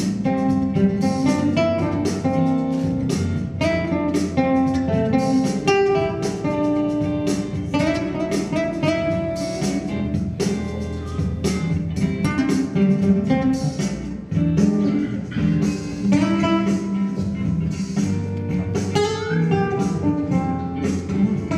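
Nylon-string classical guitar playing an instrumental piece, a steady stream of quickly plucked notes and chords.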